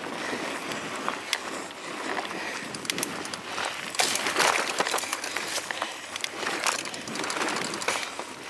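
Mountain bike riding over a dirt woodland trail, heard through a camera mounted on the bike: a constant rush of tyre and trail noise with frequent clicks and knocks as the bike rattles over bumps, loudest about four seconds in.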